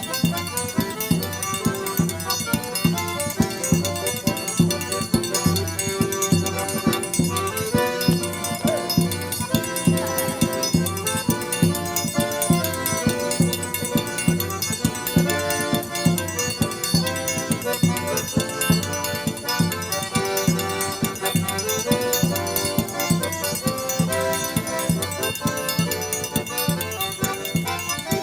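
Sanfona (button accordion) playing a lively traditional tune over a quick, steady percussion beat.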